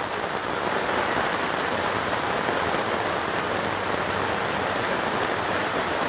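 Heavy rain hammering down on a gazebo's fabric canopy, heard from underneath as a steady, dense patter.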